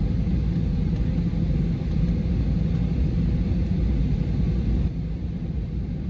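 Steady low rumble of jet airliner cabin noise in flight, the engines and rushing air heard from inside the cabin. It gets slightly quieter about five seconds in.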